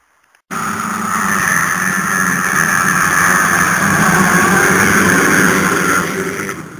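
A pack of motocross bikes revving hard and accelerating away together off the start line. The sound cuts in suddenly about half a second in and drops away sharply near the end.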